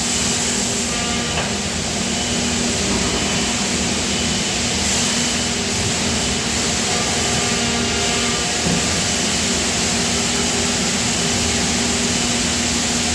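Steady industrial machinery noise in a die-casting shop: a continuous hum under a loud, even hiss, with no pauses or impacts.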